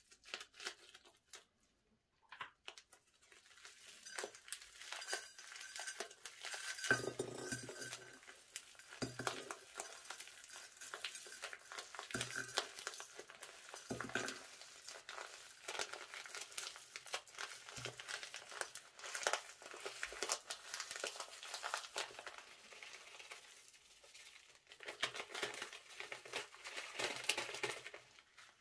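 Plastic piping bag crinkling as it is squeezed and shaken, pouring sequins and metallic confetti into a glass dish, where they patter and clink. It begins with a few scissor snips and runs as a continuous crackle with occasional heavier knocks.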